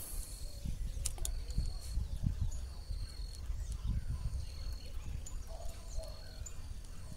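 Outdoor lakeside ambience with a low rumble and bumps on the microphone. Over it, a short, high, steady-pitched chirp repeats about once a second, with a few sharp clicks.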